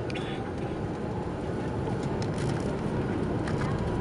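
Steady cabin rumble and hiss of an Airbus A330-200 rolling slowly on the ground with its engines at low power, with a few faint light rattles.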